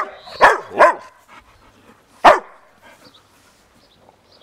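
Bouvier des Flandres barking: three quick barks in the first second, then one more bark about two seconds in.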